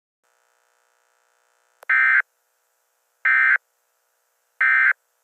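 Three identical short bursts of Emergency Alert System digital data tones, each about a third of a second long and roughly a second and a half apart, starting about two seconds in. This is the SAME end-of-message code that closes an EAS alert.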